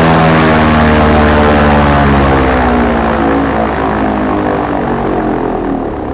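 Airboat's engine and open air propeller running loud at speed. Its pitch sinks gradually from about two and a half seconds in, and the sound cuts off suddenly at the end.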